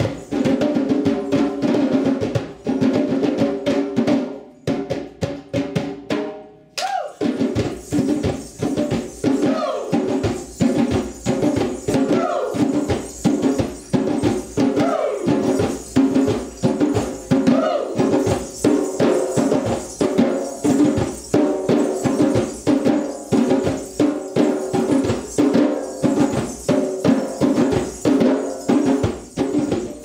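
Hand-drum ensemble music: djembes and snare drums playing a fast, steady rhythm, with a tambourine. The drumming breaks off briefly about six to seven seconds in, then picks up again.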